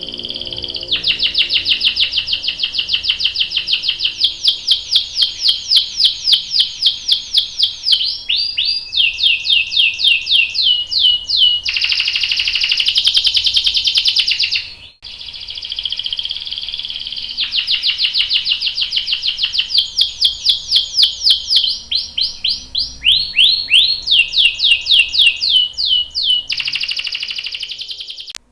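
Domestic canary singing loudly in long rapid rolls: strings of quick repeated notes, about eight to ten a second, broken by downward-sweeping notes and short buzzy warbles. The song breaks off briefly about halfway through, then starts again.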